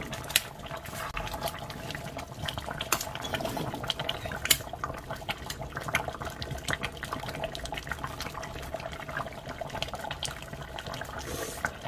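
A pot of dakdoritang (spicy braised chicken stew) simmering, its reduced, thickened sauce bubbling with irregular small pops over a steady low hum.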